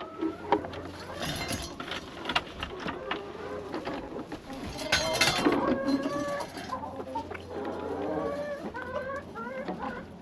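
Domestic hens clucking and calling, many short wavering calls overlapping, louder about five seconds in, with scattered sharp clicks and knocks.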